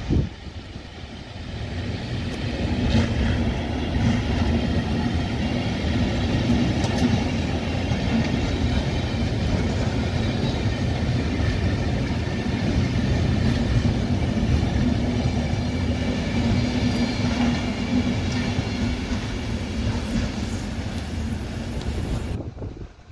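Class 73 locomotive and Network Rail test-train coaches passing close by: a steady rumble of wheels on rail with a low hum underneath. The sound cuts off sharply near the end.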